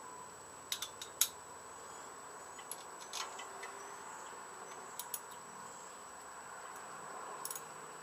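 Scattered sharp clicks and clinks of a hand tool on metal at a riding mower's engine. A cluster comes about a second in, more near three and five seconds, and one near the end, over a faint steady high whine.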